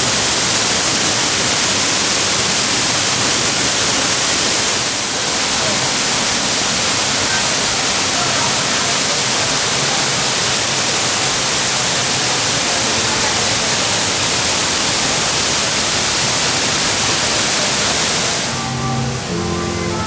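Steady, loud rushing of falling water, like a waterfall; it fades near the end as background music comes up.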